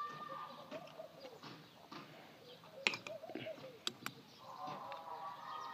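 A few sharp metal clicks from pliers and an Allen key working the bolt on a water heater's heating-element flange, the loudest about halfway through. Birds call faintly in the background, with a held call near the end.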